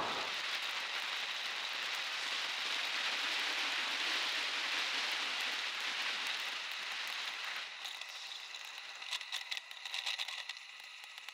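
Schwinn Lemon Peeler Krate bicycle coasting fast on asphalt: a steady hiss of tyre and wind noise. About three-quarters of the way through it drops quieter and a quick run of clicks and rattles from the bike follows.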